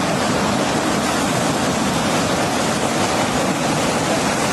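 Steady rushing noise of rough seawater, a dense even wash with no breaks.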